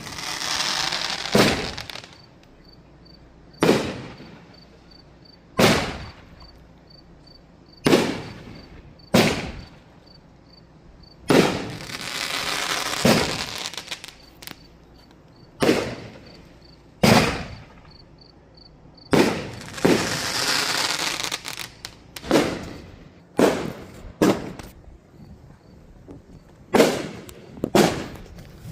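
Aerial firework shells bursting with sharp bangs every one to two seconds, several followed by a couple of seconds of crackling as the stars burn out.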